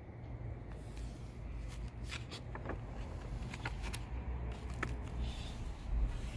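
Paper pages of a printed catalog being handled and turned: rustling with small sharp ticks in two stretches, over a steady low hum.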